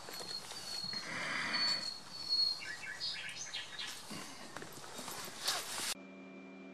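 Outdoor background with faint high bird chirps and some rustling during the first few seconds. About six seconds in it gives way to a quieter steady low hum.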